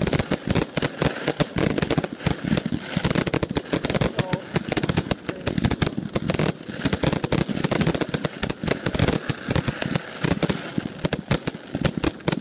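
Fireworks display at full barrage: a dense, unbroken run of bangs and crackles from many shells bursting, several reports a second.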